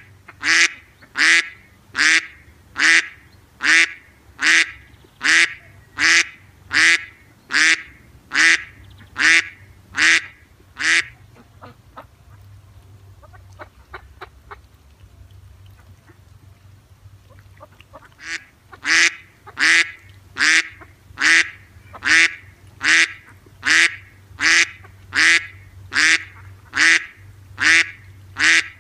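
A duck quacking over and over in short, evenly spaced calls, a little more than one a second. The calls stop for several seconds midway, then start again, over a faint steady low hum.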